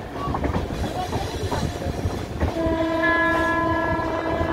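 Rumble and wheel clatter of a moving passenger train, heard from an open coach door. About two and a half seconds in, an electric locomotive's horn sounds one long, steady blast of several tones together.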